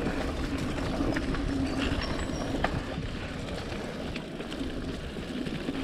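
Mountain bike being ridden along a dirt trail: a steady rumble of tyres and moving air with scattered sharp clicks and rattles from the bike.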